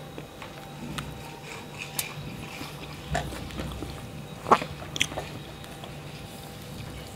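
Eating rice by hand: fingers working rice on a plate and chewing, with a few sharp clicks and mouth smacks, the loudest about four and a half seconds in. A faint steady hum runs underneath.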